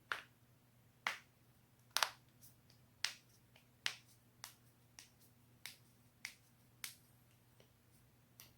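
Joints cracking: a series of sharp pops, about one a second, the loudest near the start and softer ones later, with a quick double pop about two seconds in.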